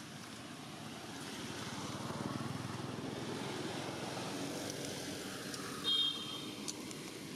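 A motor vehicle passing, its engine sound swelling to a peak about two and a half seconds in and slowly fading. A short, high chirp about six seconds in.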